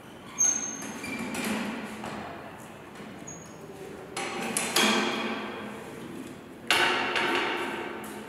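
Knocks and clanks from a wheeled chalk line marker cart being rolled and handled on a concrete floor: four sharp knocks, each ringing out for a second or two, with a couple of brief high squeaks.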